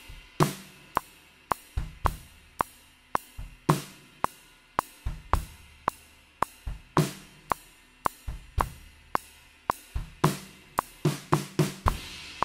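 Drum kit played solo in a slow, laid-back 6/8 groove: the right stick keeps steady eighth notes on a large ride cymbal, about two a second, over kick drum and snare. The playing stops near the end, leaving the last hit ringing.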